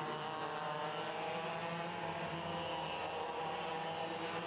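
IAME X30 125cc two-stroke kart engines running at high revs on track, their pitch drifting slightly up and down.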